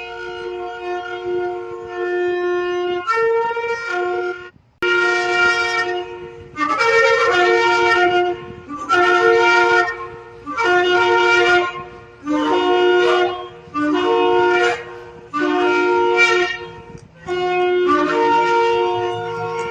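Shofar (ram's-horn trumpet) blown in a series of blasts. After a few seconds of held notes and a brief break, about eight evenly spaced blasts follow, each about a second and a half long and stepping between a lower and a higher note.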